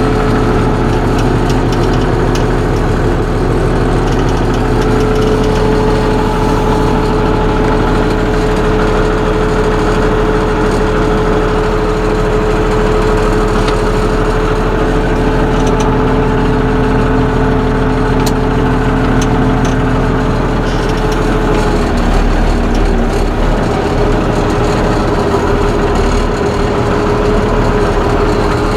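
Case International 956XL tractor's diesel engine running steadily, with a slight change in its low note about three-quarters of the way through. It lacks its usual exhaust whistle because of a cracked exhaust manifold.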